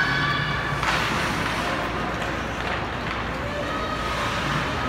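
Spectators' voices over the steady hum of an ice arena during a minor hockey game, with one sharp knock about a second in.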